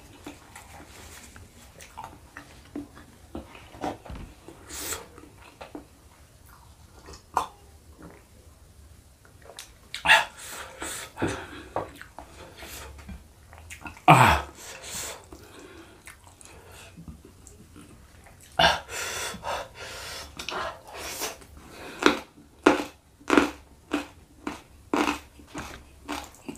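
Close-miked mukbang eating sounds: a person chewing and smacking a spicy meal of tambusu and rice. About halfway through comes one loud breathy exhale that falls in pitch. From a little past the middle there is a steady run of chewing strokes, about one and a half a second.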